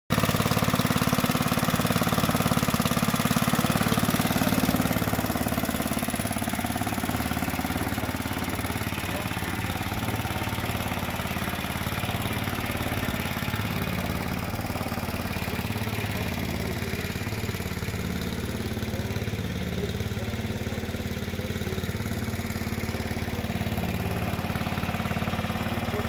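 Small engine of an old David Bradley walk-behind tractor running steadily as the tractor is driven along. The level drops a little about five seconds in.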